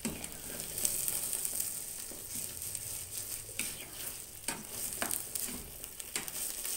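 Wooden spatula stirring and scraping thick, fully cooked saag in a frying pan on the heat, with a steady sizzle underneath. The scrapes come irregularly, about one every second.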